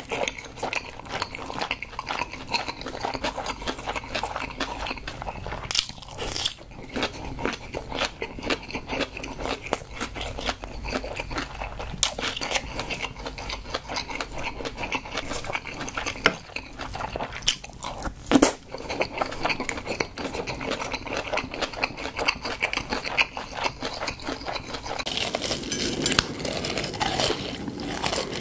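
Close-miked chewing of a mouthful of food with the mouth closed: many small, irregular wet clicks and mouth sounds. About three seconds before the end, a steadier hiss takes over.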